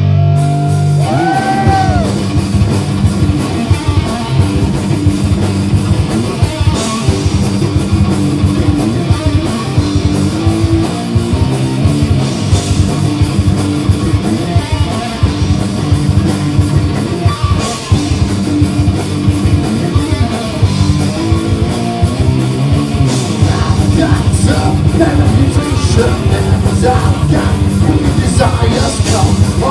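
Live heavy metal band playing loud, with distorted electric guitars, bass and drums. A note bends up and back down about a second in, and a voice sings or shouts over the band near the end.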